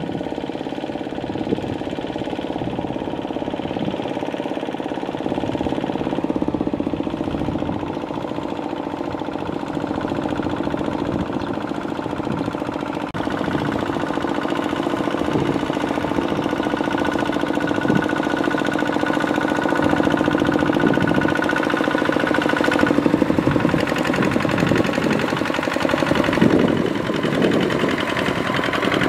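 Single-cylinder Kubota ZT155 diesel of a two-wheel walking tractor chugging steadily under load as its cage wheels churn a flooded rice paddy.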